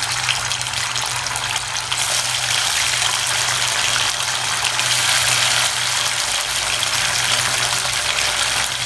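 Marinated chicken pieces deep-frying in hot oil in an aluminium kadai: a steady crackling sizzle that grows louder about two seconds in as more pieces go into the oil.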